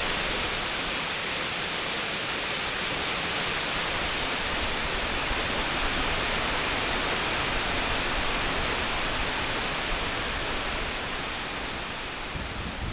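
A broad waterfall, about 30 feet tall and a couple hundred feet wide, pouring out of a lake into a creek, heard from its base as a steady rush of falling water. It eases slightly near the end.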